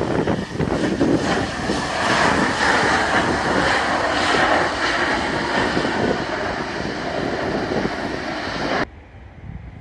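Airbus A320-family airliner rolling out on a wet runway just after touchdown, its jet engines running loud with the engine noise and wheel spray building about two seconds in. The sound cuts off suddenly near the end.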